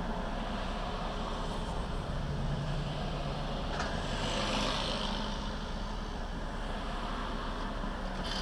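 Road and tyre noise of a moving car heard from inside the cabin, with a low engine hum; the hiss swells and fades about halfway through.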